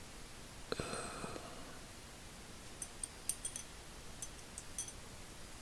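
Small steel parts of a 1/2" ratchet head (pawl and switch) being handled and fitted by hand: a light metallic knock with brief ringing about a second in, then a scatter of faint, high clicks.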